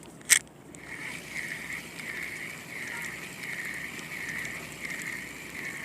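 Fishing reel: a sharp click as the reel is engaged after a cast, then a steady whir pulsing about twice a second as the line is cranked in.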